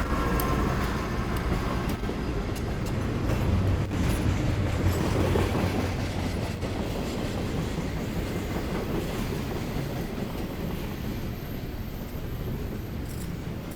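Norfolk Southern freight train rolling past: a steady rumble of cars on the rails with wheels clacking over the joints.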